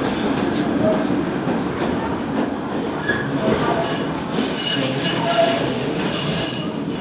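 PATH PA5 subway car running, heard from inside the car: a steady rumble of wheels on rail. High-pitched wheel squeal comes in about four seconds in and is strongest until about six and a half seconds in.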